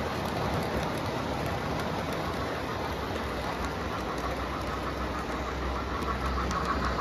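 O-gauge three-rail model trains rolling on track: a steady rumble of wheels and motors, with a deeper low rumble building near the end as a steam locomotive draws close.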